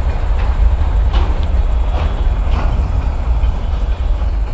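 Wind buffeting an outdoor microphone, a steady deep rumble, with a few faint footfalls or rustles.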